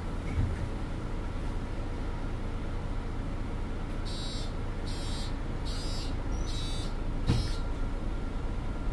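Mercedes-Benz NG 265 city bus running with a steady low rumble, heard from inside. About halfway through, a warning signal beeps five times, evenly spaced just under a second apart, and a short thump comes with the last beep.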